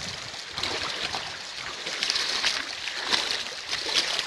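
Shallow rocky river running, with irregular splashes and sloshing from a person's legs wading through the water.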